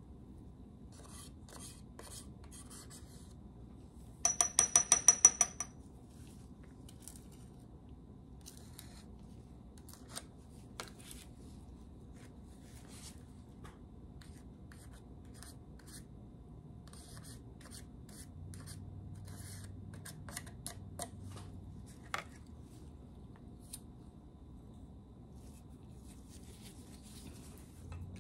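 Metal pharmacy spatula tapped quickly against a ceramic mortar: a run of about eight ringing taps about four seconds in. The rest is quieter scraping and scattered clicks as the spatula works cream and powder out of plastic weighing boats into the mortar.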